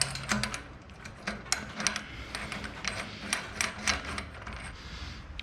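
Small metal parts clicking and clinking as a washer and axle nut are fitted onto a bicycle wheel axle by hand: a string of irregular light taps.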